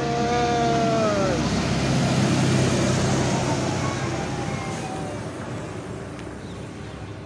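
A park ride train passing close by: its running noise and low engine hum swell to a peak about two to three seconds in, then fade away. A held tone near the start drops in pitch after about a second.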